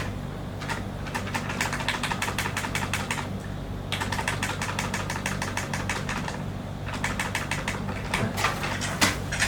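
Typing on a computer keyboard: rapid key clicks in three spells with short pauses between, over a steady low hum.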